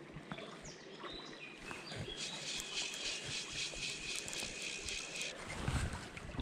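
Stream water running, with wind rumbling on the microphone and a few short chirps. About two seconds in, a rapid, even ratcheting buzz starts, runs for about three seconds and stops abruptly.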